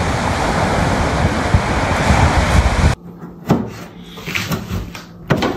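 Wind buffeting the microphone over surf on a pebble beach, cutting off suddenly about three seconds in. A few sharp knocks and clatters from things handled at a kitchen counter follow.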